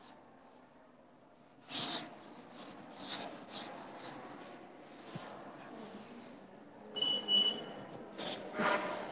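Chalk scraping and rubbing on a blackboard in a series of short strokes as the board is written on and wiped, with a brief high squeak about seven seconds in.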